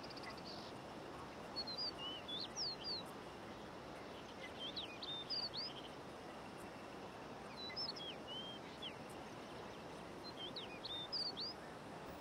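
Small birds chirping in four brief clusters of quick high chirps, about every three seconds, over a steady soft hiss of outdoor ambience.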